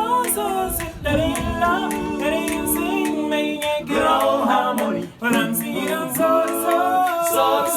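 Voices singing a cappella in close harmony, holding chords under a moving melody line. The singing breaks briefly about a second in, and again near four and just after five seconds, then comes back in.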